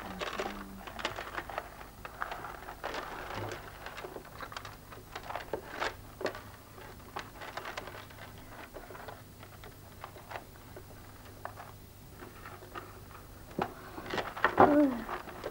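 Beads clicking and rattling in a metal tin as hands pick through them and thread them, in small irregular clicks over a low steady hum.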